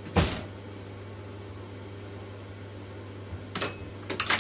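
Handling noises while unpacking an air fryer and pulling off its protective packaging: a sharp knock just after the start, then two short scrapes or rustles near the end, over a steady low hum.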